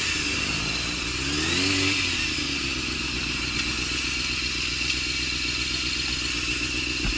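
Motorcycle engine running in traffic, rising and then falling in pitch once as it is revved about a second and a half in, then running steadily.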